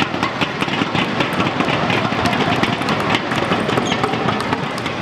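Audience applauding, a dense, steady clatter of many hands clapping in a large hall.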